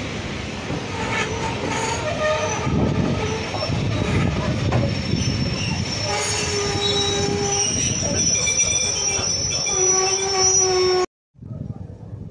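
Railway coaches moving slowly alongside a station platform, their steel wheels squealing against the rails in several high tones that come and go over a running rumble. The sound cuts off abruptly near the end.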